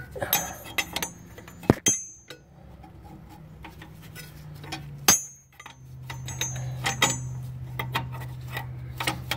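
Metal clinks, taps and knocks of a turbo oil return tube and its fittings being handled and pushed into place, with two sharper knocks, one just under two seconds in and one about five seconds in. A low steady hum sits underneath, louder in the second half.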